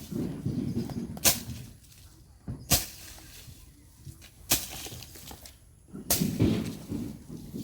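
A long blade, a sword used as a grass cutter, chopping through grass: sharp swishing strikes about every one and a half seconds, with softer sounds between them.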